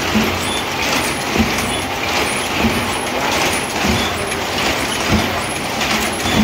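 Mechanical sedge-mat weaving loom running with a steady clatter, a knock coming about every one and a quarter seconds.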